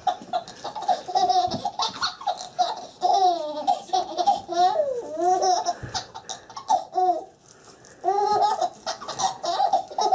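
Baby laughing in repeated bursts of high-pitched giggles and squeals, with a brief lull about seven seconds in.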